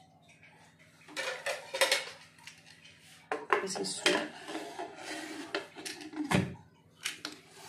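Pressure cooker lid being fitted into a metal pressure cooker: a run of metal clanks and scrapes as the lid is tilted in, seated and the handles brought together, starting about a second in.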